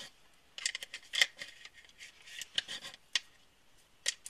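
A 1911 .45 ACP pistol magazine being loaded with an UpLULA loader: short metallic clicks and scrapes as the loader is pushed down and cartridges slide into the magazine, coming in groups about a second apart.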